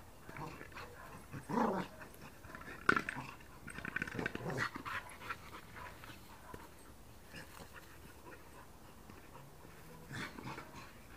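A dog panting and growling in play while it pushes and mouths a ball, with a sharp knock about three seconds in and another burst of noise near the end.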